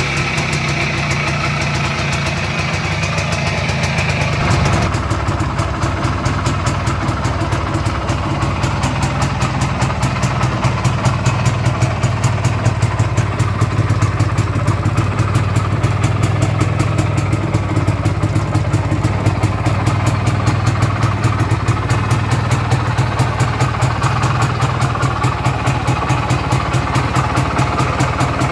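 IZH Planeta 3 single-cylinder two-stroke motorcycle engine running. The sound changes abruptly about five seconds in, then it settles into a steady idle with an even, rapid beat.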